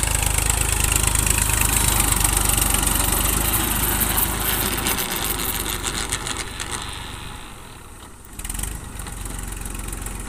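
TAFE 45 DI diesel tractor engine running under load while pulling a rotary tiller through soil. It is loud and steady at first, then grows quieter about two-thirds of the way through, with a short rise again just after the dip.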